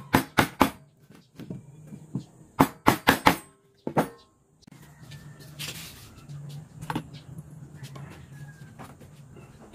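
Wood chisel being struck into a wooden frame piece to chop a mortise, giving sharp knocks in quick runs: four at the start, four more about two and a half seconds in, and a single one near four seconds. After that only faint taps and handling noise.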